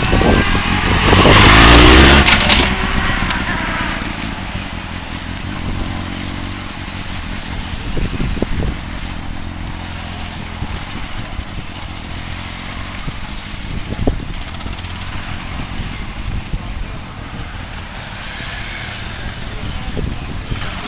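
Motorcycle engine passing close by, loudest about two seconds in, then fading as the bike rides off around a cone course, its pitch rising and falling with the throttle. A few sharp clicks come later.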